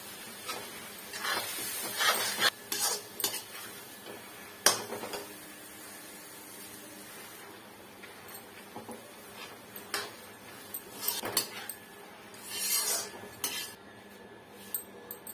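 A metal ladle stirring and scraping a thick potato-cabbage curry in a metal kadhai, with irregular clinks against the pan and one sharp knock about five seconds in. A low steady sizzle from the cooking runs underneath.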